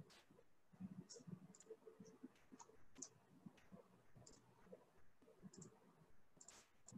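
Faint, irregular computer mouse clicks and scroll-wheel ticks, a dozen or so, over near-silent room tone.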